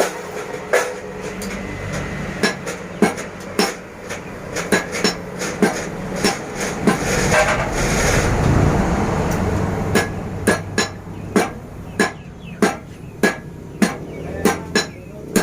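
Hammer blows on iron at a blacksmith's forge: sharp metallic strikes, uneven at first and then coming about two or three a second. Under them runs a steady mechanical noise that swells about midway.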